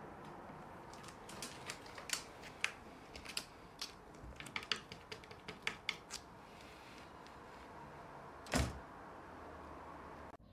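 A cat's claws clicking and tapping on a wooden parquet floor and bed frame as it squeezes under a bed: a run of light, irregular clicks, then one louder thump about two seconds before the end.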